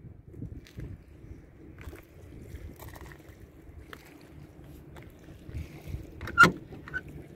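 Low rumble of wind buffeting the microphone, with light handling clicks and one sharp click about six and a half seconds in.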